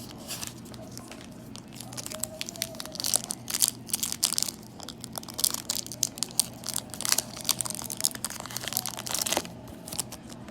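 Foil trading-card booster pack wrapper being crinkled and torn open: a dense run of sharp crackles starting about two seconds in, dying down near the end.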